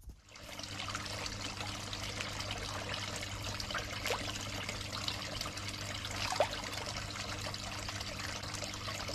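Water trickling and splashing steadily into a koi pond, with a steady low hum underneath.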